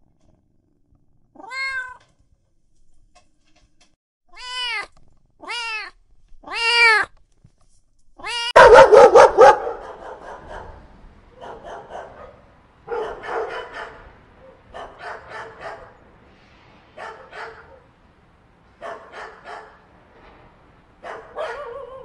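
A domestic cat meows four times, each a short call that rises and falls in pitch. About eight and a half seconds in, a loud bark opens a run of short rough growls and barks from dogs play-fighting.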